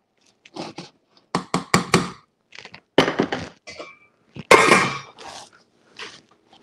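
Cookware clattering: a spoon knocking in a saucepan and metal pans being handled on the stovetop, a run of sharp knocks and clanks, the loudest about four and a half seconds in.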